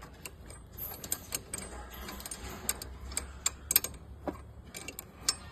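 Tool working the dirt bike's rear chain adjuster bolt: light, irregular metal clicks and ticks.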